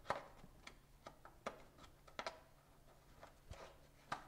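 Faint, scattered light clicks and taps as a small piece of steel round bar is handled and shifted against a chrome bumper to try its fit, over a faint steady hum.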